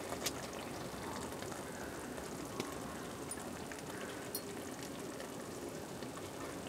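Kingfish masala gravy simmering in a pot: a soft, steady sizzle with scattered small pops.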